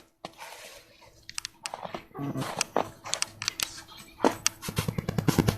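Footsteps crunching in icy snow, irregular at first, then a quick run of crunching steps in the last second and a half.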